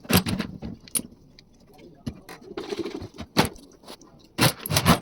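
Metal tools and pump parts clinking and clanking on a workbench in a few separate sharp knocks, as a diesel fuel injection pump is worked on by hand.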